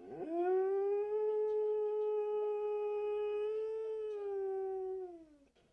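A Siberian husky's single long howl: it slides up at the start, holds one steady pitch for about five seconds, then sinks slightly and fades out near the end.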